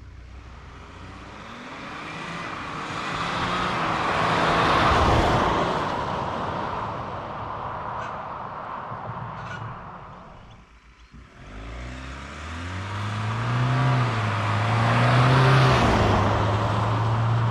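Ford Everest turbo-diesel SUV accelerating at full throttle past the roadside, swelling as it approaches and passes and then fading. After a brief gap a second full-throttle run is heard, the engine note climbing and dropping back in steps as the automatic gearbox upshifts.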